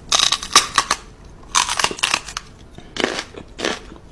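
Loud crunching and chewing in irregular bursts, a few crunches a second, like a cat biting into something crisp.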